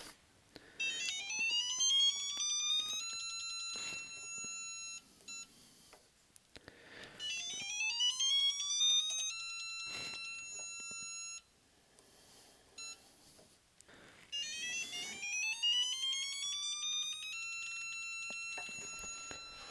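Electronic tone from a CDI digital torque tester, gliding up in pitch as torque builds on a beam torque wrench pulled to about 50 ft-lb, then holding one steady high tone for about two seconds. This happens three times, once for each pull.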